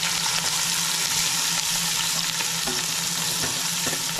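Sliced onions frying in hot oil in a pot, a steady, even sizzle: the browning stage that starts a biryani.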